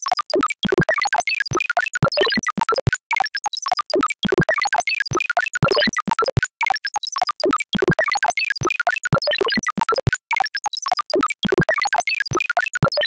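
Electronic music: a dense, irregular stream of short synthesizer blips at scattered pitches, stopping abruptly at the end.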